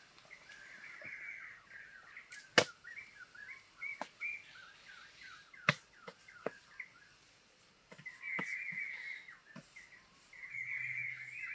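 Birds calling and chattering in the background, strongest in two spells in the second half, broken by a few sharp clicks and taps, the loudest about two and a half seconds in.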